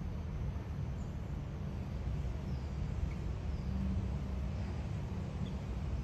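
Steady low outdoor rumble, with several faint, short, high bird chirps over it.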